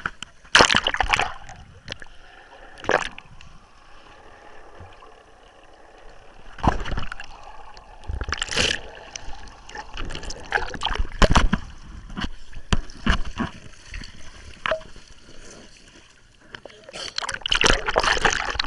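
Seawater splashing and sloshing over a waterproof camera on a towed banana boat, in repeated loud splashes with gurgling between them and a longer spell of splashing near the end.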